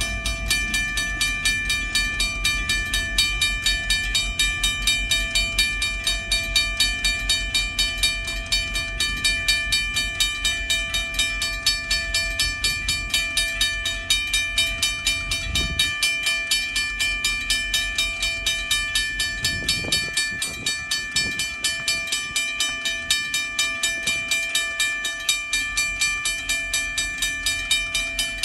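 Railroad crossing bell ringing in steady, rapid strokes while the gates are down. A low rumble runs under it for about the first half, then stops.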